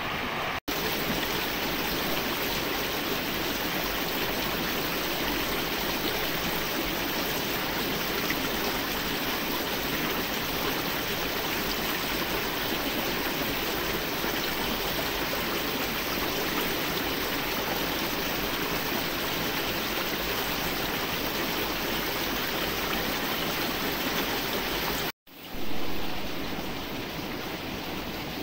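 Steady rush of flowing stream water. It cuts out for an instant about half a second in and again near the end, coming back a little louder after the second break.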